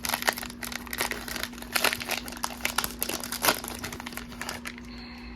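Trading-card hanger pack's wrapper being torn open and handled: a quick run of crinkling and crackling that dies down near the end.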